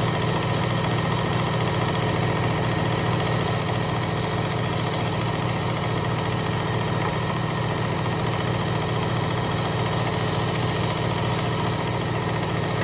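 Electric belt knife sharpener (Work Sharp Ken Onion Elite with blade grinder attachment) running steadily at low belt speed, with two passes of a knife edge along the fine 5-micron abrasive belt, each a hiss of about three seconds, starting about 3 s in and about 9 s in.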